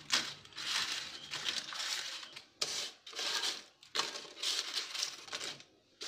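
Crisp microwave-baked potato chips crackling and crunching as hands press and break them apart on butter paper, with the paper crinkling under them. The crackle comes in several bunches with short pauses between, and it is the sign that the chips are fully crisp.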